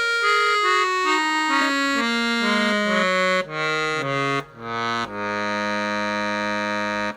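Treble side of a Hohner Student 72 accordion on its first register, played with the bellows pulling: a descending scale of single notes, a few more notes, then one long held note that stops near the end. It is a sound check after repair, testing each reed's tuning.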